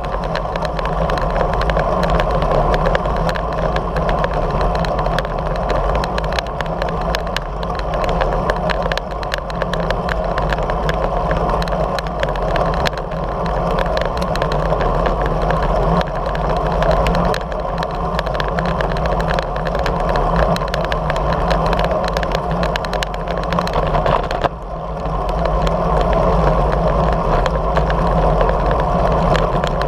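Steady wind and road noise on a camera carried by a road bicycle at speed: a continuous rushing with a low rumble, dipping briefly about 25 seconds in.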